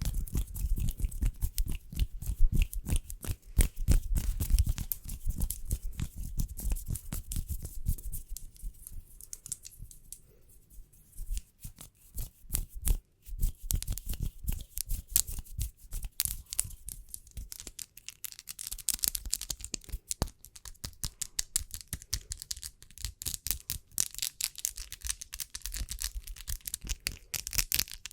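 ASMR fingernail tapping and hand rubbing: many quick taps and clicks over a rough rubbing rustle, fuller and lower in the first few seconds.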